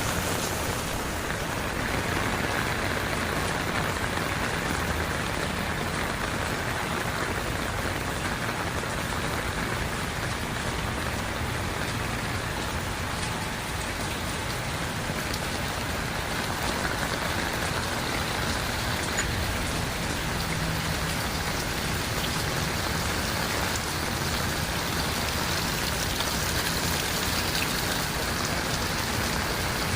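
Heavy rain falling steadily and pattering on surfaces.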